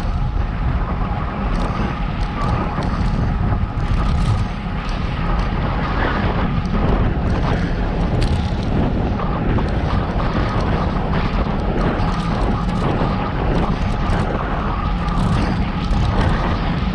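Steady wind noise on the microphone while riding a bicycle, over tyre and road noise, with frequent small clicks and rattles.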